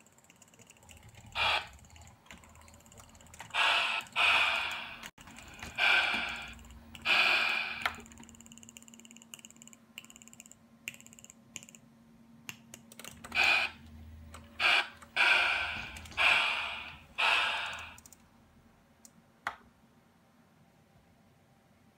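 G-scale LGB Stainz model steam locomotive giving a series of short hissing bursts, each fading away within about a second, irregularly spaced with a gap in the middle, over a faint steady hum. The bursts stop a few seconds before the end.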